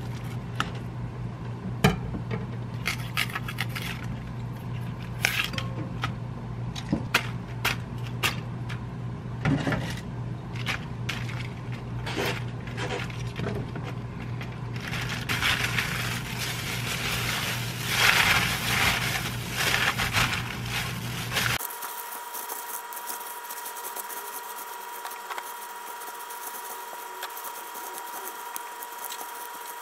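A metal spoon scrapes and clicks against a glass mixing bowl, then cut napa cabbage pieces are dropped in with a loud rustle. About two-thirds through, this changes to a softer, steady rustling as plastic-gloved hands toss the cabbage in chili seasoning.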